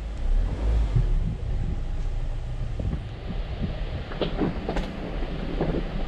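Jeep Wrangler JL driving on a rocky off-road trail: a steady low rumble of the vehicle, louder for the first second or so, with a run of sharp knocks and clanks about four to five and a half seconds in.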